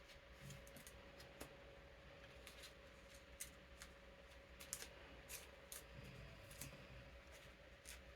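Faint crinkles and clicks of cards being slid into plastic card sleeves and handled, a few sharp crackles every second. Under them, the steady hum of an electric fan.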